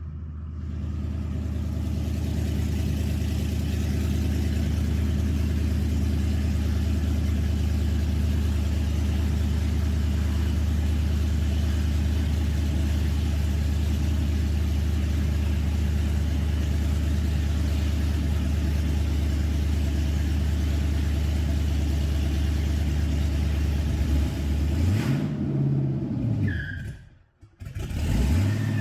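A vehicle's engine and road noise at a steady cruise, a low, even drone. Near the end the engine note rises and falls briefly, then the sound drops out for a moment and returns.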